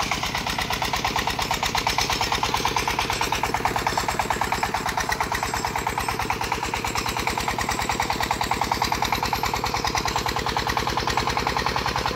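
Công nông farm truck's single-cylinder diesel engine running with a steady, even pulsing beat.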